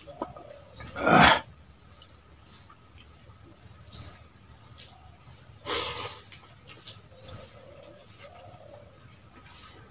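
Wet mouth sounds of people eating pakhala (fermented rice in water) by hand. There is a loud slurp about a second in and another near six seconds. Short high chirps come about every three seconds between them.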